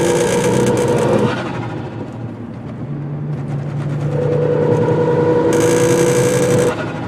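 Car running in gear with a loud rubbing noise, a steady drone-like tone over the engine that comes in for about the first second, then again from about four seconds in until shortly before the end. The occupants take it for something on the car rubbing or hitting on something; the cause is not yet found.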